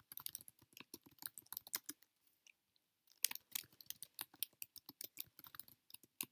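Typing on a computer keyboard: a quick run of key clicks that stops for about a second midway, then resumes.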